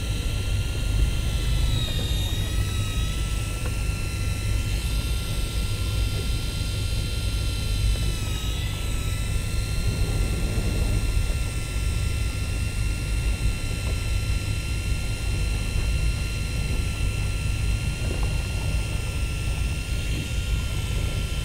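Steady low rumble of a fishing boat's engine, overlaid by a steady high-pitched mechanical whine. The whine sags briefly in pitch twice, about two seconds in and again about eight seconds in.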